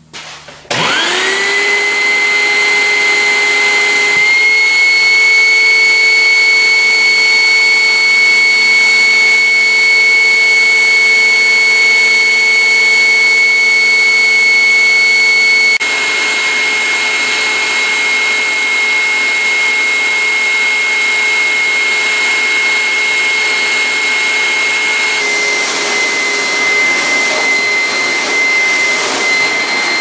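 Hoover SteamVac Dual V Spin Scrub carpet cleaner switched on under a second in: its motor spins up with a rising whine and then runs steadily with a high whine. The air-driven brush turbine and gear assembly is working again, turning the brush rolls; the sound shifts about halfway through and again near the end.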